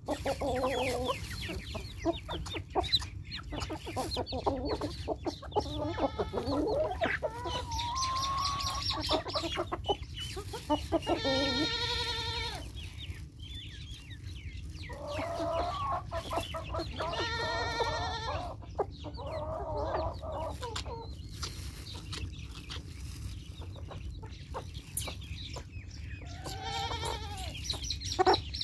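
A flock of hens and roosters clucking as they feed, with many small taps of beaks pecking grain from the ground. Three longer, drawn-out calls stand out, about a third of the way in, about two thirds in, and near the end.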